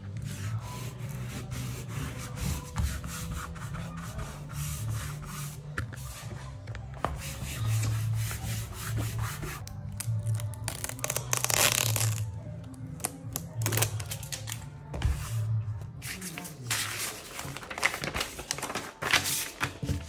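Background music with a steady bass, over the rustling and rubbing of vinyl sticker sheets being handled and a sticker's backing peeled, in irregular bursts that are loudest about halfway through and near the end.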